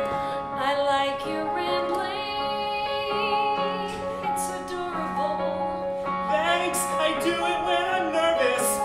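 A live song with a voice singing long held notes with vibrato over sustained chords on a Yamaha digital keyboard.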